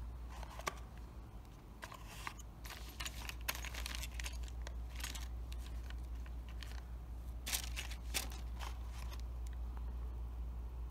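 Plastic zip bags of cables and connectors crinkling and rustling in a series of short crackles as they are handled, over a steady low hum.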